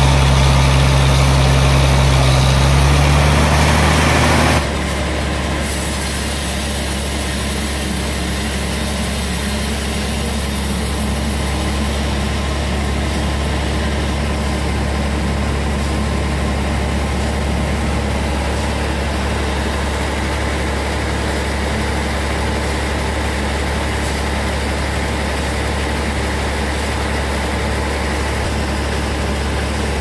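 The sawmill's stationary engine running fast, then dropping suddenly to a steady idle about four and a half seconds in, where it stays.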